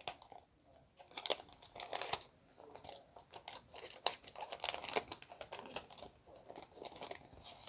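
Paper wrapper of a 1982 Donruss baseball card pack being torn open and crinkled by hand: irregular crackling and rustling.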